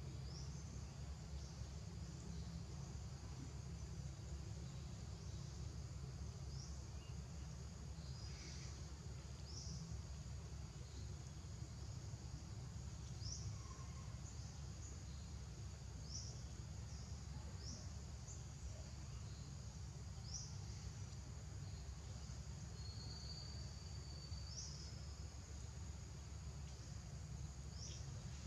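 Outdoor ambience: a steady high-pitched insect drone with short rising chirps every second or two, over a low steady rumble.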